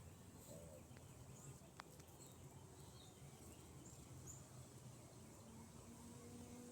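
Near silence: faint outdoor ambience with a low hum and a few faint, brief bird chirps.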